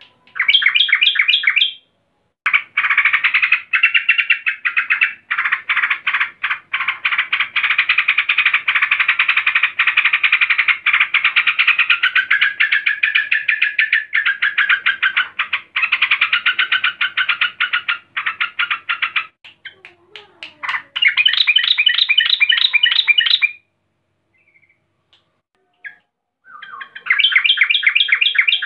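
Female yellow-vented bulbul (trucukan) calling in agitation, the call keepers use to draw a male into song: a long run of fast, bubbly chattering notes, with shorter bursts of rapidly repeated notes at the start, about three-quarters through and near the end.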